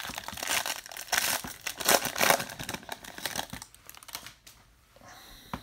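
Foil trading-card pack wrapper crinkling in the hands as it is opened, for about the first three and a half seconds. Then it fades to quieter handling of the cards.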